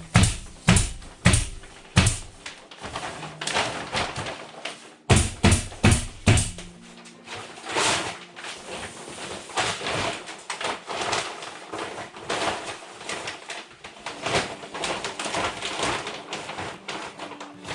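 A run of sharp knocks: loud strikes about every half second at first and again around five seconds in, then quicker, lighter taps and scraping. Faint steady tones sit underneath.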